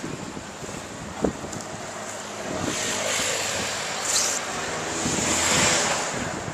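Road traffic passing: cars swell up and fade away twice, the louder one near the end, over a steady hiss of wind on the microphone. A short knock about a second in.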